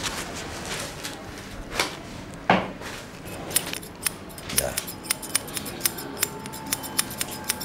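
Barber's scissors snipping hair in a quick, even rhythm of about three to four cuts a second, starting about three seconds in. Before that, a few scattered sounds, the loudest a sudden sharp one about two and a half seconds in.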